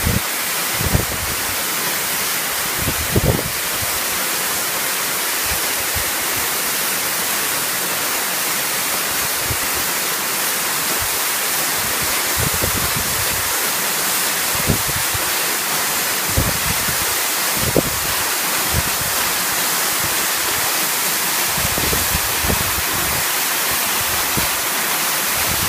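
Waterfall heard close up from directly below the falls: a steady, dense rush of falling water. A few brief low thumps break in now and then.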